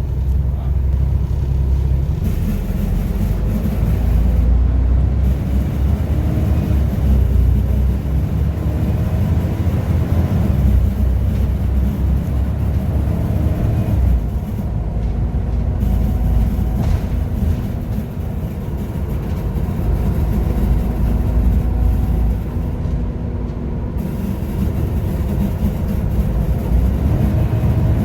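Volvo B7TL double-decker bus's six-cylinder diesel engine running under way: a loud, heavy low rumble whose pitch rises and falls with engine speed.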